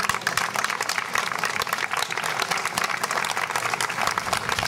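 Crowd applauding: dense hand clapping that breaks out suddenly and keeps on.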